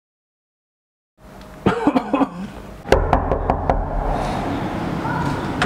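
Knocking on a door: a sharp knock about three seconds in, followed quickly by a short run of lighter raps.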